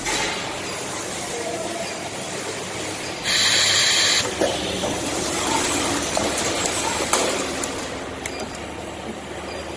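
Automatic gang saw blade welding machine running with a steady hiss. About a third of the way in, a louder hiss lasts about a second, followed by a few faint clicks.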